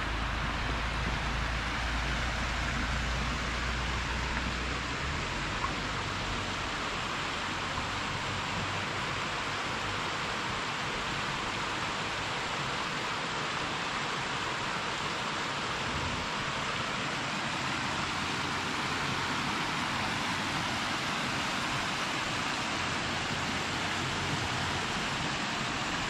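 Steady rushing of a cascading mountain creek and waterfall. A low rumble underneath stops about five seconds in.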